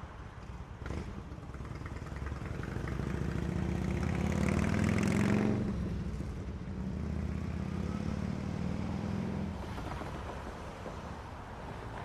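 A motor vehicle passing by, its engine and tyre noise growing louder to a peak about five seconds in, then fading away. A small knock sounds about a second in.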